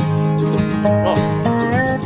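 Background music: an upbeat track of plucked acoustic strings.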